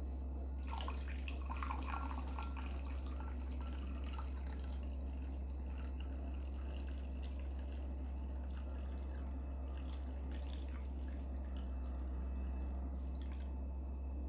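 Fruit compote poured from a glass jug into a glass cup, a stream of liquid splashing into the glass as the cup fills, starting about a second in. Underneath runs a steady low hum.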